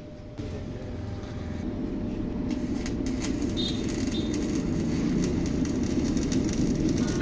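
A motor vehicle's engine running and growing steadily louder as it approaches, with crackling clicks over it from about two and a half seconds in.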